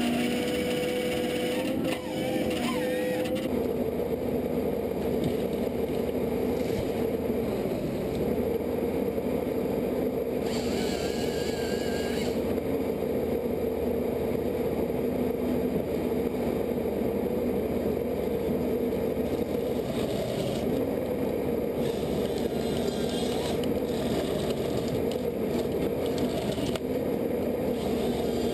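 Engine of a heavy machine running steadily with a constant drone, and a brief higher hiss about ten seconds in.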